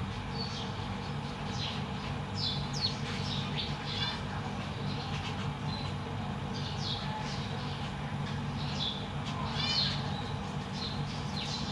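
Zebra finches calling: short, high chirps that sweep downward, repeated irregularly every second or so. A steady low hum runs underneath.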